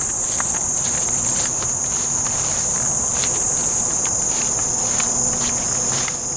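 A loud, steady chorus of insects, such as crickets, giving one continuous high-pitched trill that does not let up.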